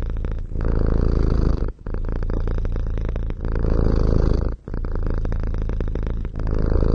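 Tabby cat purring, the purr rising and falling with each breath in and out, about every one to one and a half seconds.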